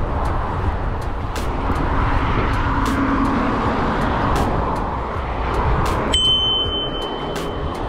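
Steady rush of wind and road traffic on a moving bicycle's handlebar-mounted camera, with scattered light clicks. About six seconds in a steady high-pitched electronic tone starts and holds.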